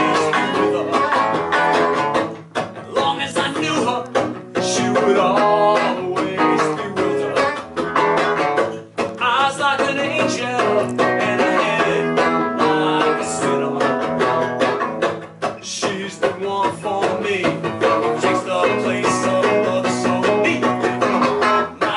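Live instrumental break in a blues-tinged song: a strummed guitar with a rack-held harmonica playing a wavering melody over it.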